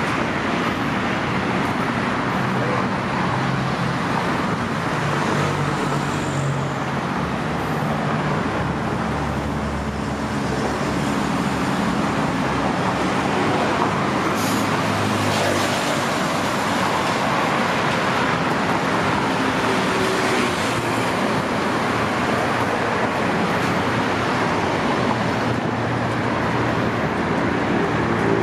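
Steady road traffic on a multi-lane road: cars and vans passing, with a continuous mix of engine hum and tyre noise.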